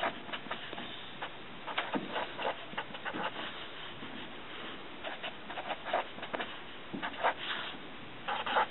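Pen writing on lined notebook paper: quick, irregular scratching strokes in short clusters as numbers are written out.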